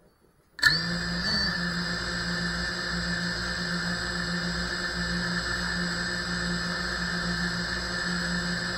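Brushless motors and propellers of a GEPRC Cinelog 35 FPV cinewhoop spinning at idle after arming while the drone sits on the floor: a steady whine that starts suddenly about half a second in.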